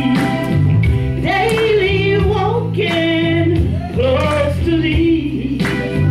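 Live gospel singing: a woman and a man singing into microphones over steady instrumental accompaniment, the woman's voice the more prominent.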